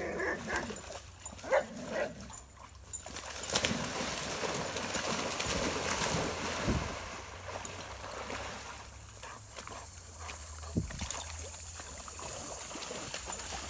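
Two Irish Setters bounding into a creek after a thrown ball: loud splashing from about three and a half seconds in, easing after a few seconds into softer sloshing as they swim.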